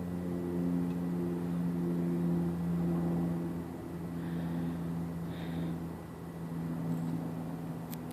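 A steady low engine-like hum runs throughout, with a few faint high chirps around the middle.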